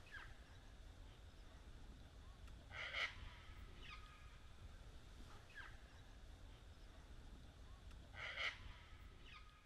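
Faint bird calls over near silence. Soft short notes slide downward a few times, with two louder, harsher calls about three seconds in and near the end.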